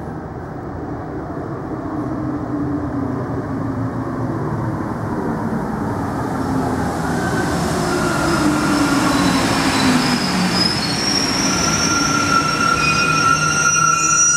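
Alstom NS-16 rubber-tyred metro train pulling into a station and slowing to a stop, growing louder as it approaches. A whine falls in pitch as it slows, and high squeals join from about eight seconds in as it brakes.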